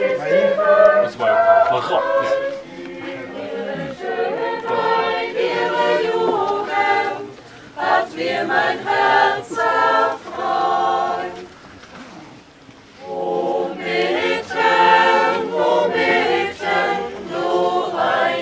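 Tyrolean choir of children and adults singing together, with a short lull about two-thirds of the way through before the singing picks up again.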